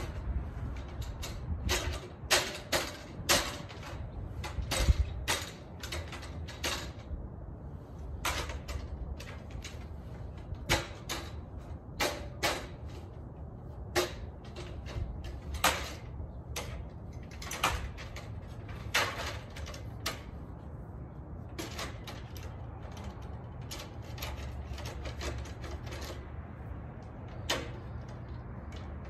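Irregular sharp clicks and knocks from hand work at an aluminium ladder, over a steady low rumble.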